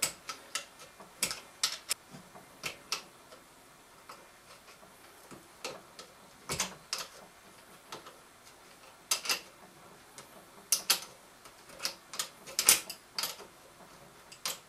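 Sharp, irregular metallic clicks from a hand tool loosening the bolt on a furnace blower motor's mounting bracket, sometimes singly and sometimes in quick pairs or runs.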